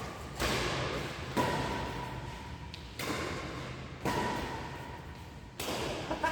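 Badminton rackets striking a shuttlecock in a rally, five or six sharp hits about a second to a second and a half apart, each trailing off in a long echo of a large sports hall.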